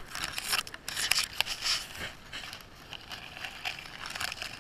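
Dog sniffing with its nose down in the grass, grass blades rustling and crackling against the camera strapped under its chin, in irregular bursts that are busiest in the first two seconds and lighter after.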